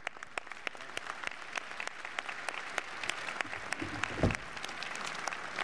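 Large outdoor audience applauding, a steady patter of many hands clapping. There is one low thump about four seconds in.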